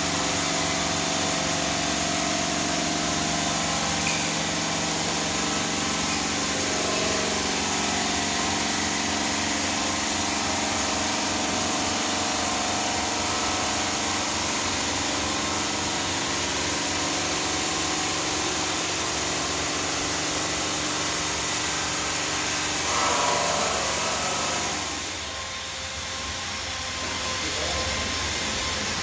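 Denver 5-axis CNC bridge saw cutting black granite: a steady machine noise with a bright hiss and several steady tones. Near the end the hiss cuts off suddenly and the sound falls to a quieter hum.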